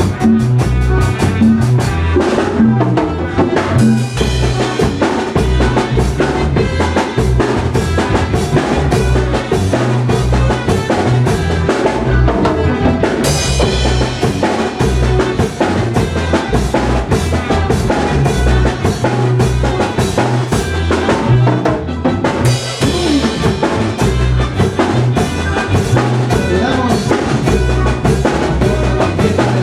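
A band playing a Mixtec chilena, dance music with a steady drum-kit beat and bass.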